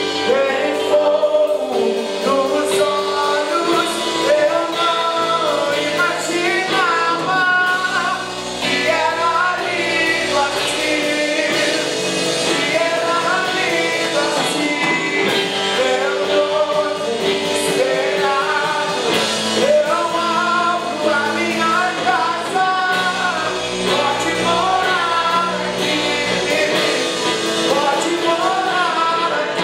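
Live worship song in Portuguese: a man sings lead with full voice over strummed electric guitar and a drum kit with cymbals, held low notes underneath.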